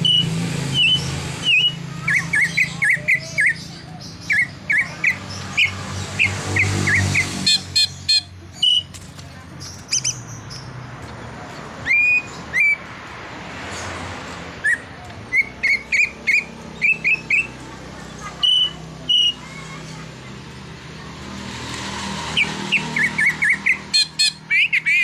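Green leafbird (cucak ijo) singing a varied song packed with mimicked phrases: runs of quick, high chirping notes and clear whistles, coming in bursts every second or two.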